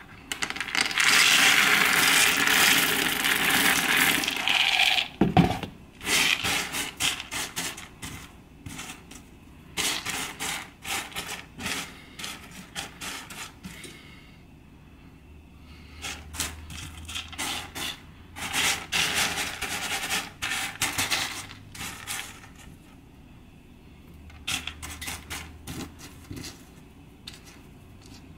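Dry pinto beans poured out of a plastic bowl onto a mat, a dense rattle for about four seconds, then a single knock. After that, the beans are pushed and spread by hand across the mat, clicking and scraping in short spells.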